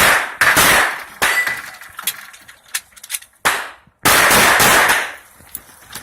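Glock 19 9mm pistol firing in quick groups of loud shots, each with a ringing tail: two at the start, one about three and a half seconds in, and a longer run about four seconds in. Lighter sharp ticks fall between the groups.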